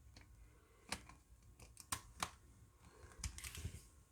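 Faint, scattered clicks and taps of small plastic parts being handled and fitted while a Nintendo 3DS is put back together, with a quick run of clicks a little over three seconds in.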